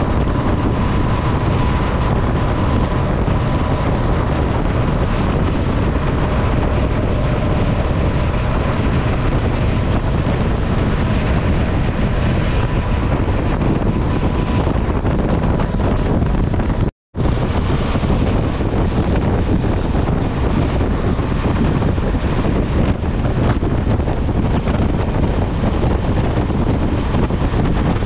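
Steady wind rush on the microphone of a motorcycle-mounted camera, with the motorcycle's engine and tyre noise underneath, at highway speed. The sound cuts out briefly a little past halfway, then the same riding noise resumes.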